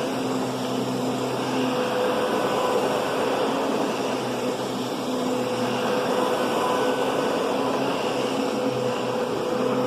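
Kenmore Progressive canister vacuum running steadily: a motor hum with a rush of air.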